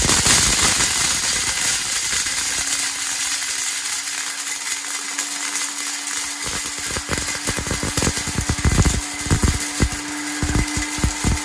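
Silvercrest electric blender switched on and running at full speed, grinding corn: a loud motor whir that starts abruptly, with a steady hum and, from about halfway, irregular thumps as the corn is thrown about in the jar.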